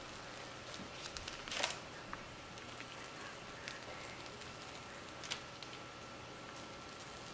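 Faint crackling and crinkling of a plastic piping bag being squeezed as batter is piped onto parchment paper, with scattered soft clicks and two louder crinkles, about one and a half seconds in and just after five seconds.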